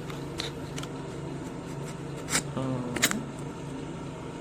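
Small clicks and handling of a 67mm lens filter attachment being fitted onto the back of a phone case, with two sharper clicks about two and three seconds in, over a steady low hum.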